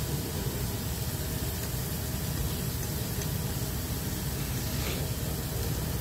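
Steady diner background noise: a low rumble and hum under an even hiss, with a faint click about five seconds in.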